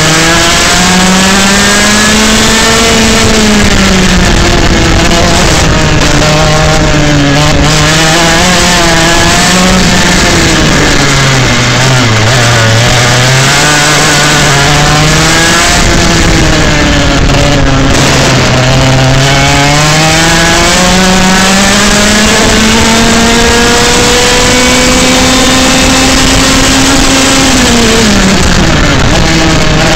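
Parilla 125cc two-stroke kart engine heard onboard at racing pace, loud and close. Its pitch climbs as the kart accelerates and drops sharply off the throttle into corners, several times over, with one long climb late on before a last drop near the end.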